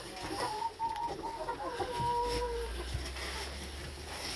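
Chickens clucking, one giving a longer call held at a steady pitch from about a second in.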